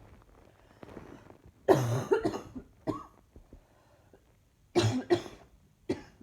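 A person coughing in short fits: a quick run of two or three coughs about a second and a half in, a single cough just after, then another pair and one last cough near the end, with faint breathing between.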